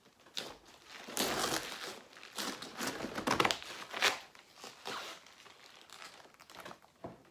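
A kitchen knife cutting through a whole raw cabbage head, the tight leaves crunching and crackling in a series of bursts, with the halves torn apart as the head splits.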